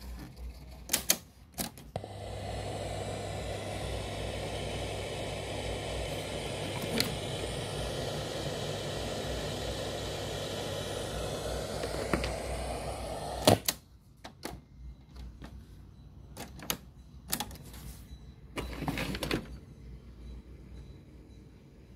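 Mechanical clicks of a Sanyo MW220K cassette radio being worked on. A few sharp clicks, then a steady hiss with a low hum for about eleven seconds, ended by a loud clunk. Scattered clicks and knocks follow.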